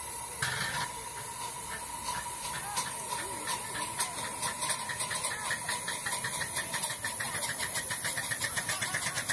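Ride-on miniature live-steam locomotive pulling a passenger train away: a short burst of steam hiss about half a second in, then a rhythmic beat that quickens steadily as the train gathers speed.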